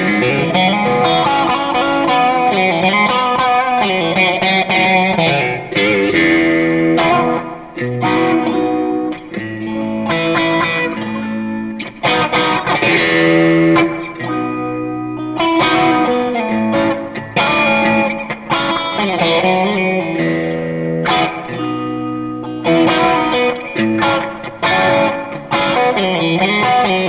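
Fender Stratocaster Deluxe Roadhouse electric guitar played through an amp with its pickup selector on the middle and bridge pickups together, a mix of chords and single-note lead lines with bent notes.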